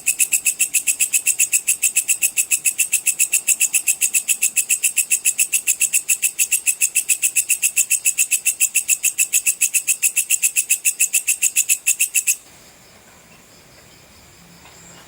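Belalang pedang katydid stridulating: a fast, even train of shrill pulses, about six or seven a second, that stops abruptly about twelve seconds in, leaving only a faint high hum.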